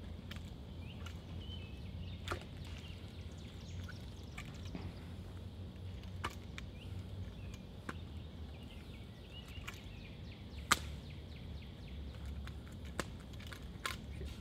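Scattered sharp slaps and clacks of gloved hands catching and handling a spinning drill rifle, about half a dozen, the loudest a little past the middle, over a steady low rumble with small birds chirping.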